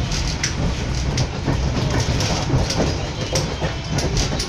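Passenger train running along the track, heard from inside the carriage: a steady low rumble with frequent short clicks and knocks from the wheels on the rails.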